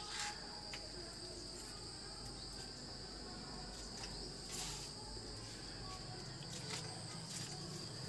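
Insects trilling steadily: a faint, continuous high-pitched drone, with a few faint clicks scattered through it.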